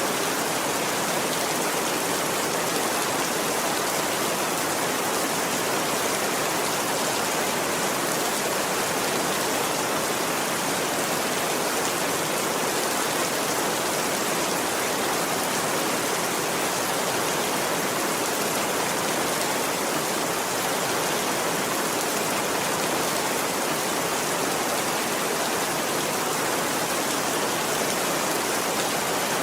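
Steady, heavy rain falling: an even, unbroken hiss with no single drops standing out and no thunder.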